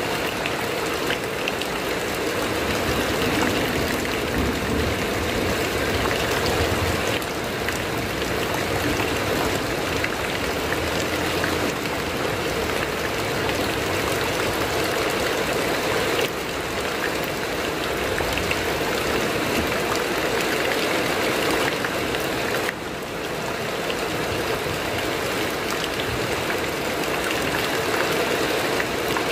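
Heavy rain falling on a corrugated metal roof, a dense, steady hiss.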